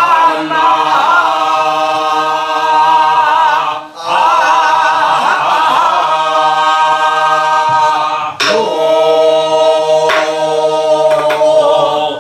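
A woman singing a Namdo folk song in a full, open-throated voice: long held notes with heavy wavering vibrato, in phrases broken by short breaths about four and eight seconds in. A few strokes on a buk barrel drum mark the beat in the second half.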